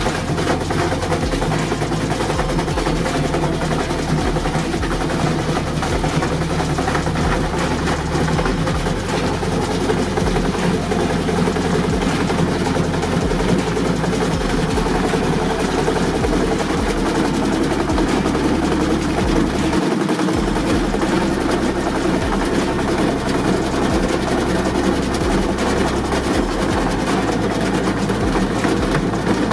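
Washing machine spinning at high speed with a 70 lb steel weight in the drum, a loud, steady running noise with a low rumble that shifts every second or two.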